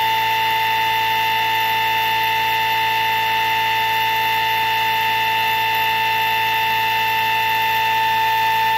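Pulse motor running, giving a steady high-pitched whine with overtones. Its pitch follows the motor's pulse rate of about 440 pulses a second.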